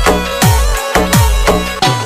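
Instrumental break of a DJ-remixed folk song: heavy electronic bass drum hits, each dropping in pitch, about three a second, under held melody notes.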